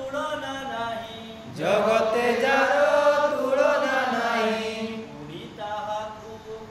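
Men singing an Odia patriotic song in a chanting style. The singing grows louder at about a second and a half in and eases back at about five seconds.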